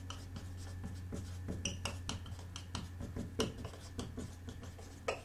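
Dry-erase marker writing on a whiteboard: an irregular run of short, quick strokes over a steady low hum.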